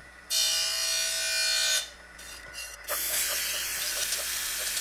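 Surface grinder wheel grinding a steel bar on a first light pass to find the high spots. A loud ringing squeal rises about a third of a second in and lasts about a second and a half. From about three seconds in comes a steady gritty hiss as the wheel cuts the steel.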